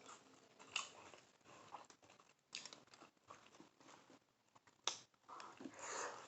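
A person chewing and biting a beef birria taco close to the microphone: soft wet mouth clicks and smacks, with a few sharper clicks and a louder run of chewing near the end.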